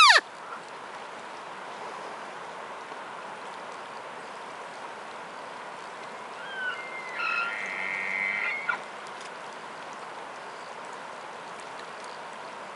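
Distant bull elk bugling: a high, whistled call of about two seconds with a low tone beneath it, starting about six and a half seconds in, over the steady rush of the river. At the very start the tail of a loud, close call drops steeply in pitch.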